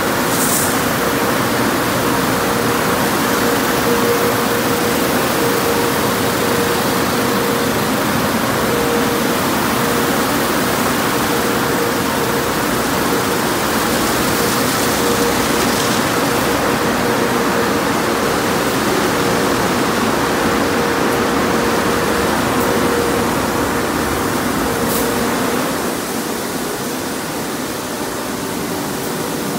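Tommy's Express tunnel car wash at work: water jets spraying and spinning foam-and-cloth side brushes scrubbing a car, over a steady machine hum. A few faint clicks, and the noise eases slightly near the end.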